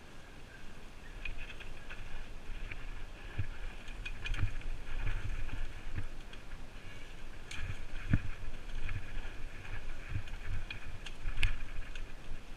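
Mountain bike riding down a leaf-covered dirt trail: a steady rumble of tyres and wind on the helmet-mounted microphone, with rattles and sharp knocks of the bike over bumps, the loudest about eleven seconds in.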